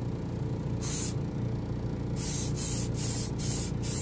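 Airbrush spraying metallic lacquer in short hissing bursts as the trigger is pressed and released: one burst about a second in, then five quick bursts in a row from about two seconds on. A steady low hum runs underneath.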